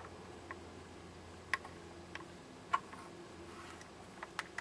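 Faint, scattered clicks and taps from handling a plastic Galaxy MP5K airsoft gun, a few more in quick succession near the end, over a faint steady hum.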